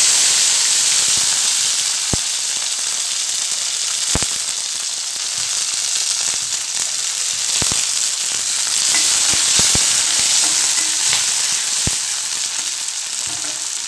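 Garlic cloves sizzling in hot mustard oil in a small kadai: a steady, loud frying hiss, broken by a handful of sharp clicks as the cloves are stirred with a metal spatula.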